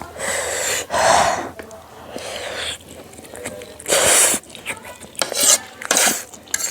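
A person eating spicy instant noodles close to the microphone: several noisy slurps, each about half a second to a second long, with chewing and light utensil clicks between them.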